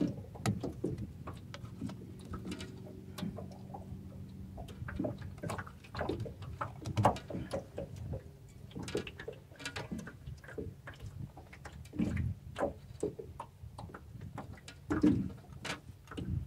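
Irregular clicks, taps and knocks of fishing gear being handled in a small boat, over a faint low hum.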